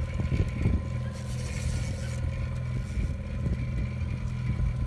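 Outboard boat motor running steadily, a low even hum, with a few soft knocks and a brief hiss around a second in.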